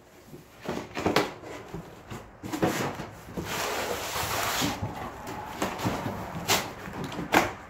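Cardboard shipping box being ripped open: packing tape torn off and cardboard flaps pulled and folded back, with scattered rustles and knocks. A longer tearing rasp comes about three and a half seconds in, and two sharp cardboard snaps near the end.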